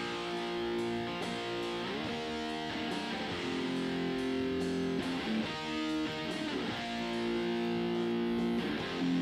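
Recorded electric guitar track playing back: sustained chords that change every second or so, with slides between some of them. The compressor's ratio is at 1:1, so the guitar is not yet being compressed.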